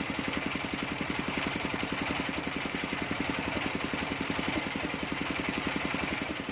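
Engine of a mobile circular sawmill running steadily with an even, fast beat of firing pulses and no sound of a cut.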